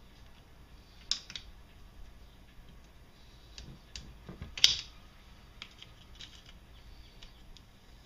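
Hand tool clicking and tapping against a metal engine case while it is being taken apart, in irregular sharp clicks with two louder ones, about a second in and a little past the middle.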